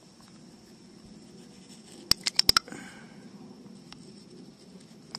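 A broken piece of piston ring scraping and clicking in a piston's ring groove, working out carbon that the soak has softened; a quick run of sharp clicks comes about two seconds in, then a short scratchy patch, with single clicks later.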